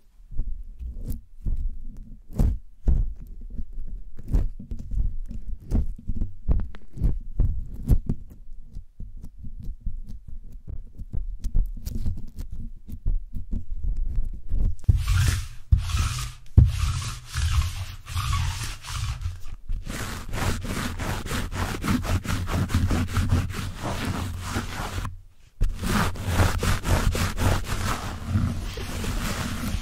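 Close-mic rubbing and scratching right on the microphone, heavy with low rumble: irregular crackles and thumps from fingers on the mesh grille, then denser rustling from fuzzy fabric pressed and rubbed over it. After a short silent break near the end, a sticky lint roller is rubbed against a foam windscreen.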